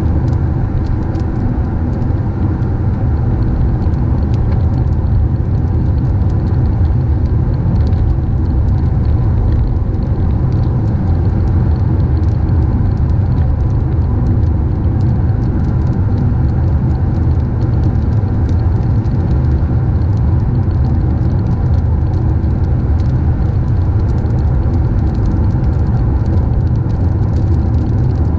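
Car driving on a wet road in the rain: a steady low rumble of engine and tyres, with faint scattered ticks over it.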